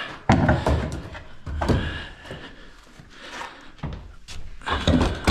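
Three heavy wooden knocks and thuds as 2x4 framing lumber is handled and knocked into place.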